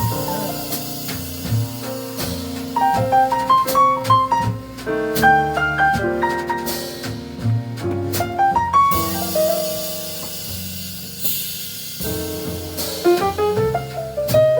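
Jazz combo playing: quick piano runs over drum kit and bass, with a cymbal wash swelling about nine seconds in.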